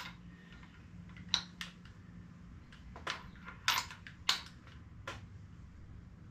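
About seven sharp, irregularly spaced metallic clicks from a torque wrench and socket on a spark plug, as the new plug is tightened to about 12 foot-pounds.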